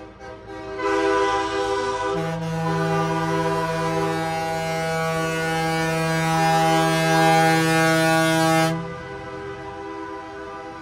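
Semi truck's train-style air horns blowing one long, loud chord of several notes for about eight seconds, with a deeper note joining about two seconds in. The blast cuts off sharply, and fainter horns keep sounding before and after it.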